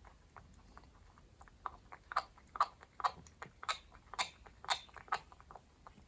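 Bengal cat chewing food with audible tooth grinding, a sign that she has lost four of her lower molars. Faint at first, then about two louder grinding bites a second from about a second and a half in, dying away near the end.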